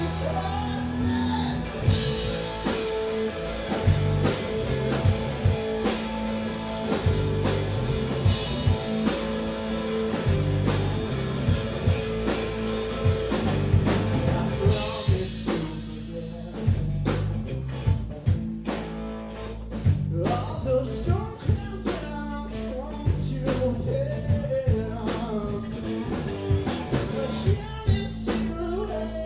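Live rock band playing: electric guitar, electric bass and drum kit, with a man singing. About halfway through, the dense full-band wash thins out, leaving drums, bass and a lighter guitar under the vocal.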